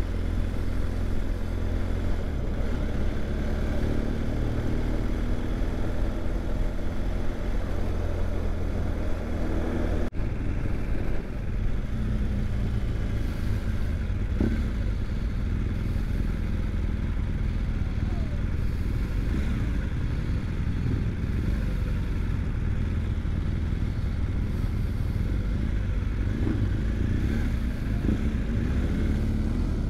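BMW R1200 GS Adventure boxer-twin motorcycle running under way at low road speed, with steady low wind and road rumble. The engine note rises gently in the first ten seconds, and there is a brief break in the sound about ten seconds in.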